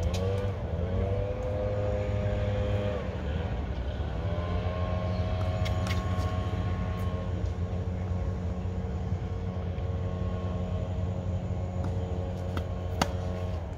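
A motor running steadily, its pitch dropping and then climbing back up about four seconds in, with a few sharp clicks; the loudest click comes near the end.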